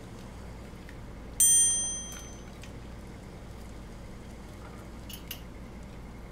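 A single bright bell-like chime rings out about a second and a half in and fades within a second, then two quick clicks come about five seconds in: the ding and mouse-click sound effects of an animated subscribe-button graphic.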